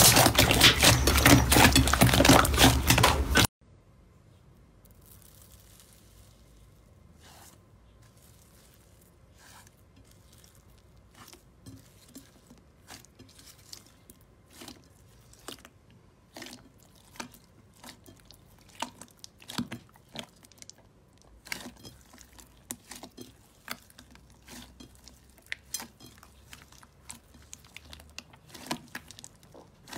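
Hands squeezing and kneading a large mass of slime in a glass bowl: sticky pops and clicks, sparse at first and coming more often after about ten seconds. For the first three seconds or so there is a much louder, dense crackling that cuts off suddenly.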